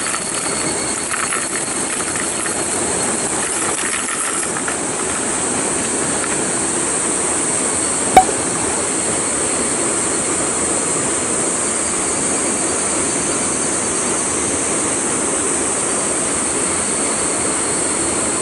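Water rushing steadily at a stream inflow, an even hiss. A single sharp click about eight seconds in.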